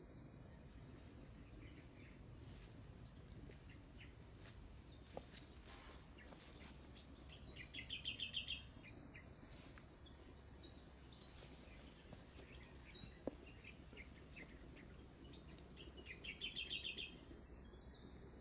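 A bird gives a short, fast trill of about a dozen high notes twice, some eight seconds apart, over faint outdoor background noise.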